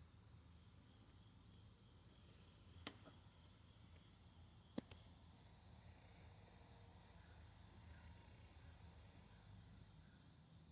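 Faint, steady high-pitched chirring of crickets, with a faint low rumble underneath and two short sharp clicks.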